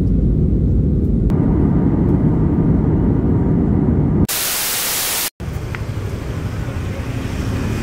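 Steady deep rumble of an airliner in flight, heard from inside the cabin by a window. About four seconds in it gives way to a second of loud even hiss, then cuts to street ambience with traffic.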